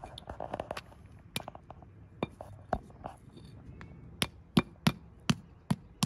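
A hand-held rock striking a copper penny on a concrete paver: about eight sharp knocks, a few spaced out at first, then coming quickly in the last two seconds, as the penny is hammered into a makeshift washer.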